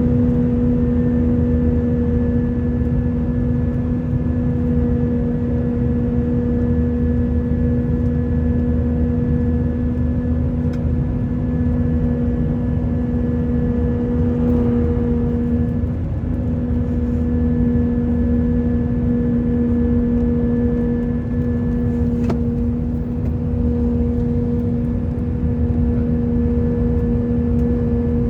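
Cabin noise inside an Airbus A319: a steady low rumble under a constant low humming tone, which dips briefly about halfway through. The uploader heard this hum for the whole flight and could not work out its cause.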